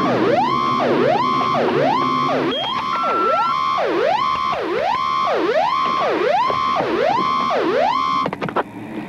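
Electronic alarm siren whooping over and over, each cycle a quick fall in pitch and a rise back up to a held high note, about every three-quarters of a second. It cuts off suddenly near the end, with a couple of short electronic beeps over it a few seconds in.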